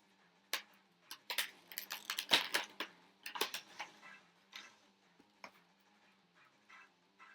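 Crinkling and clicking of a trading-card collection box's plastic wrap and cardboard being handled and opened. Dense crackles for the first few seconds, then a few scattered clicks.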